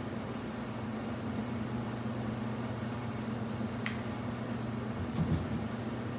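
Room tone: a steady low hum over a soft hiss. A single sharp click comes about four seconds in, and a soft low bump follows about a second later.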